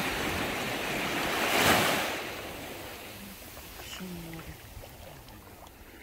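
Small sea waves breaking and washing up the shore: the wash swells to its loudest about a second and a half in, then runs back and fades.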